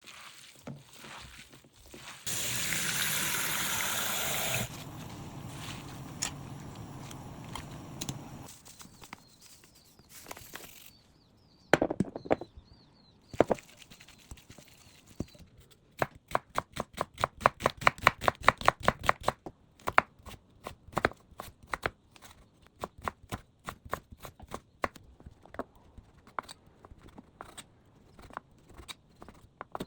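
Home kitchen cooking sounds. Early on there is a loud rushing noise for about two seconds, then a quieter steady hiss. Later a kitchen knife cuts rapidly and evenly on a cutting board, about five strokes a second, among scattered knocks and clicks.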